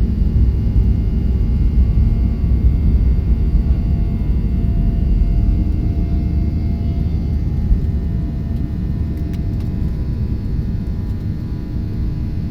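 Jet engines of a Boeing 737-800 running during takeoff: a steady deep rumble with faint thin steady whines above it, easing slightly in loudness in the second half.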